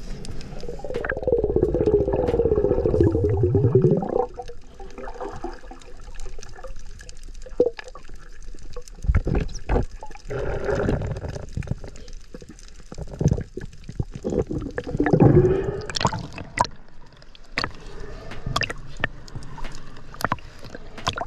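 Water gurgling and sloshing. A loud wavering gurgle with a pitch runs for the first few seconds, then short knocks and swells of sloshing follow at intervals.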